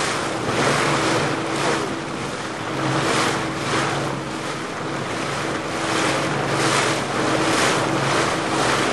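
A boat's motor hums steadily under a rush of wind on the microphone and water washing along the hull. The rushing swells and fades roughly once a second as the boat moves through the water.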